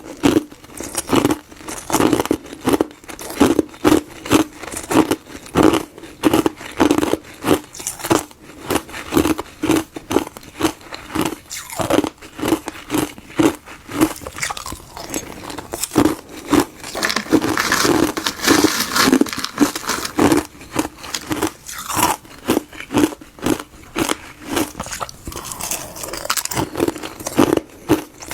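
A block of frozen herbal-tea ice being smashed by hand into granules: a steady run of crunching hits, about one or two a second, with a denser spell of crackling breakage partway through.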